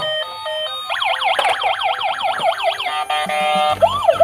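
Battery-operated toy fire truck's electronic sound chip: a short beeping tune, then a fast wailing siren sweeping down about four times a second. Near the end a slower siren wail comes in over a low hum.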